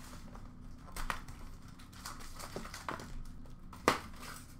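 Foil trading-card pack wrappers crinkling and rustling as hockey card packs are handled, in a few short bursts, the sharpest about four seconds in.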